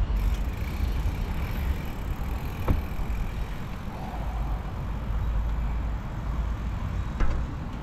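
Wind buffeting the microphone of a camera carried on a moving bicycle: a steady low rumble, with a sharp click about three seconds in and another near the end.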